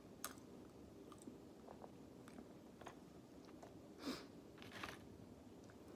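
Faint chewing of food, with scattered soft clicks and a few short louder noises near the start and about four seconds in.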